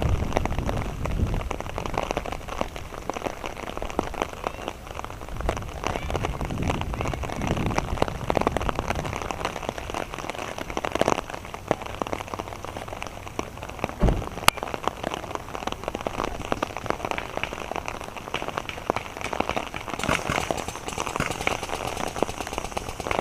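Steady rain falling: a dense patter of drops, with a couple of sharper single cracks near the middle.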